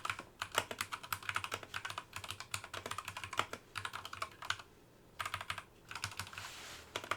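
Keys on a Geeky GK61 hot-swap mechanical keyboard being pressed in quick runs of clacks, with a short pause a little past halfway.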